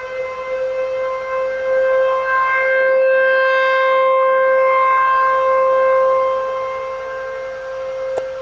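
Outdoor civil-defense warning siren sounding a steady tone during a siren test. It swells louder about two seconds in, holds, then fades again near the end.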